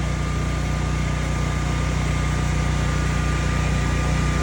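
An engine running steadily at idle: a constant low drone with a thin steady whine over it.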